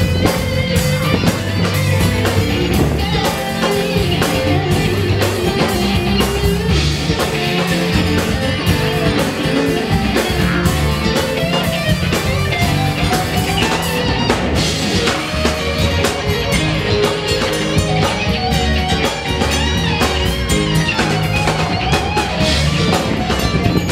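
Live band playing with amplified electric guitar, bass, drum kit and saxophone in a steady, driving groove.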